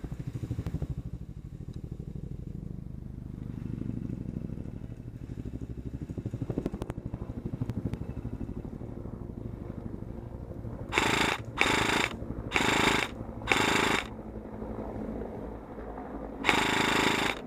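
Airsoft electric gun firing short full-auto bursts: four quick bursts about a second apart, then a longer one near the end. Before the bursts there is a low, rapidly pulsing rumble.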